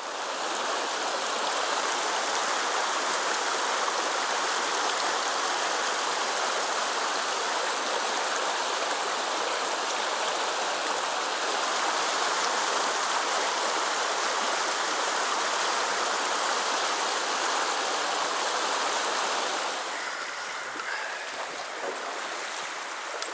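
A shallow river running fast over a rocky riffle, a steady rush of water. About twenty seconds in it gives way to the quieter sound of slower water.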